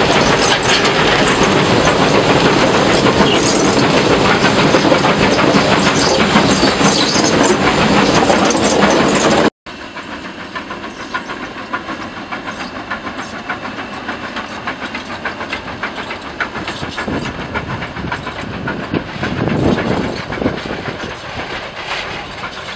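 Steam locomotive No. 1 of the Furka steam railway heard from its own cab: a loud, steady clatter of the running locomotive, with the firebox door open. It cuts off abruptly about ten seconds in, and the same train is then heard from beside the line, quieter, the locomotive working uphill past with rhythmic exhaust beats and wheel noise, growing louder near the end.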